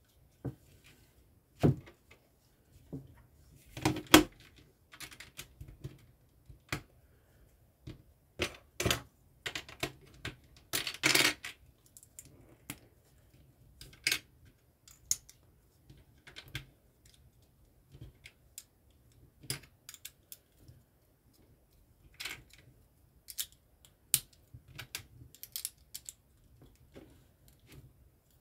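Plastic LEGO pieces clicking and clattering as they are handled and pressed together: scattered sharp clicks, with a denser rattle about eleven seconds in.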